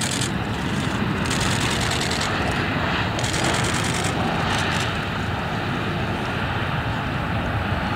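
Four-engine Airbus A340 jet airliner at takeoff power, its engines giving a steady, loud rumble as it rolls down the runway and lifts off, with a hiss that swells and fades now and then.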